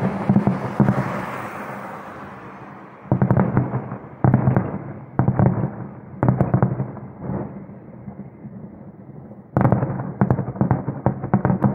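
Aerial fireworks shells bursting in a distant display: a dense run of rapid bangs and crackle that fades away, then a series of separate volleys about a second apart. After a short lull, another dense run of bangs starts near the end.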